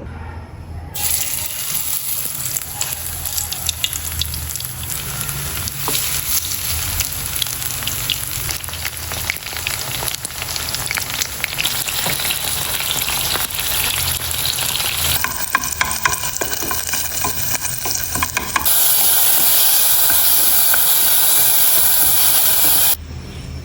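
Food sizzling and crackling in a frying pan, dense with small pops. The sound shifts abruptly twice, and in the last few seconds it is a louder, even hiss that cuts off suddenly near the end.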